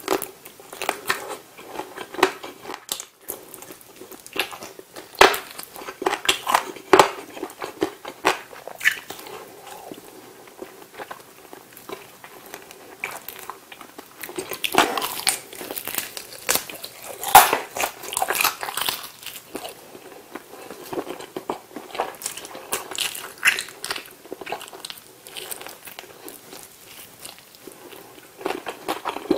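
Close-miked biting and chewing of crispy fried chicken: irregular sharp crunches and crackles of the breaded skin between moist chewing sounds, with the loudest crunches about halfway through.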